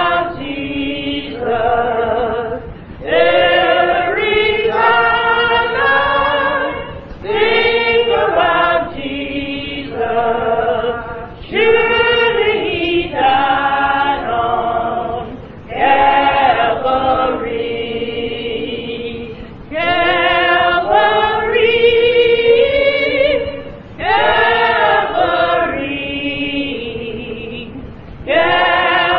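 Church choir singing a gospel song in long, wavering held phrases that break every few seconds; a muffled recording with the highs cut off.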